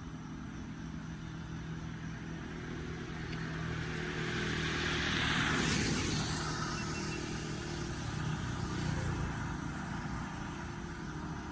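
A motor vehicle passes, its sound swelling to a peak about halfway through and then fading, over a steady low engine hum.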